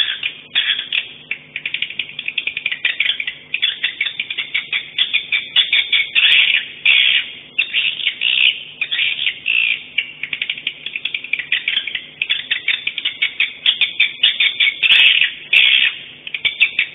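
Recorded swiftlet calls: dense, rapid twittering chirps in quick pulses with brief pauses, the kind of call sound used to lure swiftlets into nest houses.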